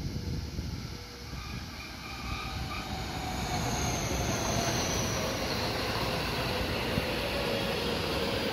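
JR West electric multiple-unit train running in along the platform: a steady rumble of wheels on rails that grows louder about three seconds in as the cars come alongside, with a high whine that slowly falls in pitch.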